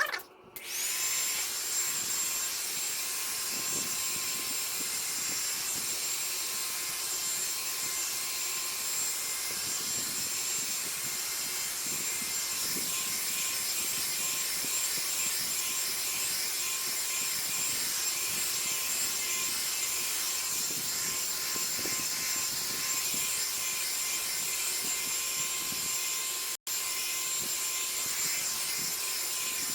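Revlon hot air dryer brush running steadily: a hiss of blowing air with a high motor whine, which starts about a second in.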